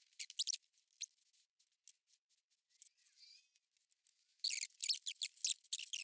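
Faint, high-pitched clicks and rustles of test meters being handled on a workbench, with a stretch of near silence in the middle.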